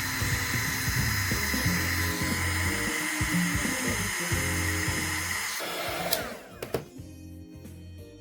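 Heat gun blowing hot air steadily to soften a toy figure's rubbery joint, then switched off about six seconds in.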